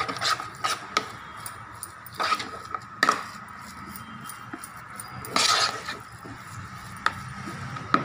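Hand rubbing and mixing a crumbly grated-paneer mixture in a plastic bowl, with scattered light clicks and knocks against the bowl and a faint steady whine underneath.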